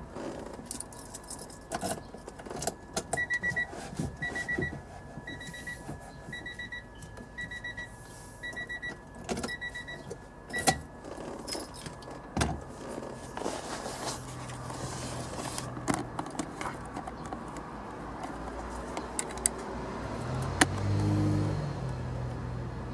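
An Acura Integra's in-car warning chime beeps about once a second for several seconds, among scattered clicks and rattles of parts and keys being handled. The chime stops about ten seconds in; a low hum follows later.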